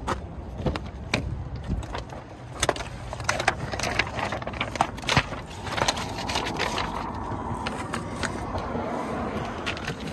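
Car door being opened and someone climbing into the driver's seat: a string of sharp clicks and knocks from the door latch and handling, then a steadier rustle through the last few seconds.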